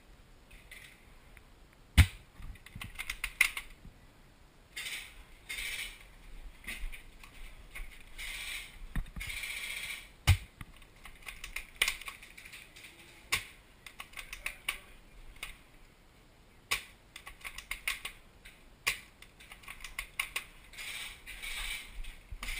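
Scattered clicks, knocks and short rustles from handling an airsoft sniper rifle and gear at close range. The loudest is a sharp crack about two seconds in, with another strong knock near ten seconds.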